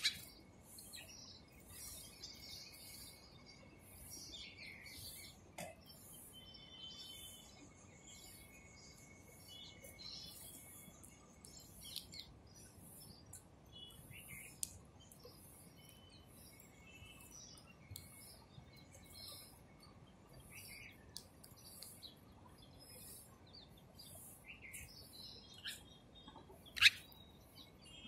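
Small songbirds chirping and twittering in short, scattered calls, over a faint high-pitched pulse that repeats about twice a second. One loud, sharp sound close by about a second before the end.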